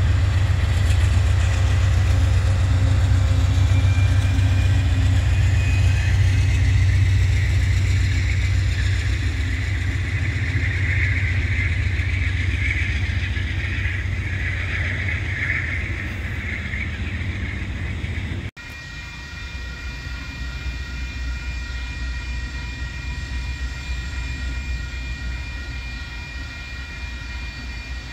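Amtrak GE P42DC diesel locomotive passing with its engine running under load, followed by the steady rumble and rolling wheel noise of bi-level Superliner passenger cars going by. About two-thirds of the way through it cuts abruptly to a quieter low rumble with several steady high tones.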